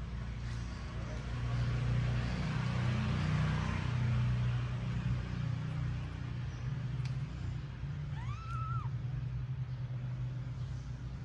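A single short kitten mew about eight seconds in, rising then falling in pitch, over a steady low rumble of background noise.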